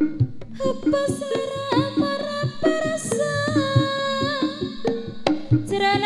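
Live Javanese jaranan ensemble music: steady drum strokes under a long, bending melodic line that starts about half a second in and breaks off briefly near the end.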